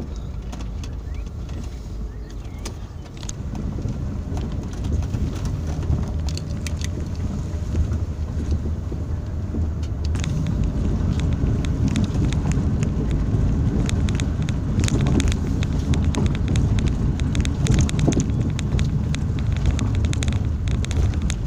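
Hyundai Santa Fe SUV heard from inside the cabin, driving over a rough grass track: a steady low rumble of engine and tyres with scattered knocks and rattles. About halfway through it moves onto a gravel road and grows louder, with crackling and clicking from stones under the tyres.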